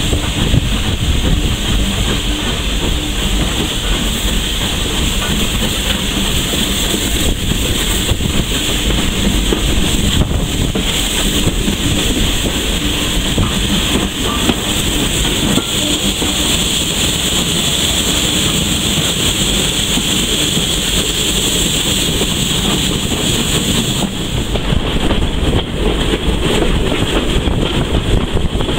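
Heritage passenger train running along the line, a steady rumbling running noise of wheels on rails.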